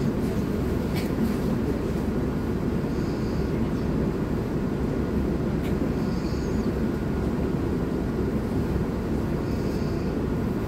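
Steady low rumble inside a Volgabus 4298.G4 city bus, with a couple of faint rattles.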